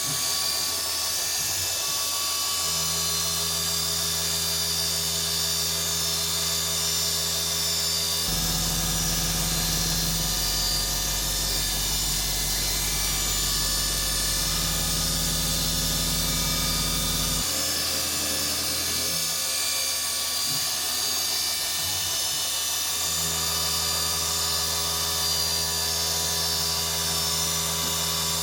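DIY CNC milling machine running: the spindle gives a steady high whine while the axis stepper motors hum underneath, their pitch jumping to a new steady note every few seconds as the feed moves change.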